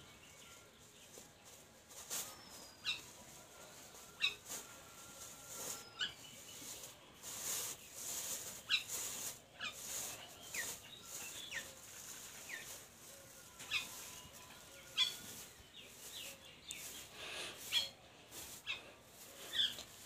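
Small birds chirping: short, high calls repeated every second or so, over a faint rustling.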